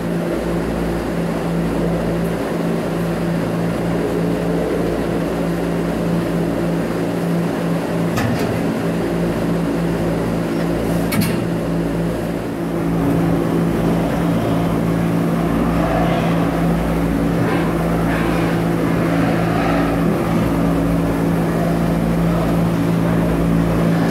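Steady machine drone with a low hum, from the barn's equipment. Two short clicks come about 8 and 11 seconds in, and the drone gets a little louder about halfway through.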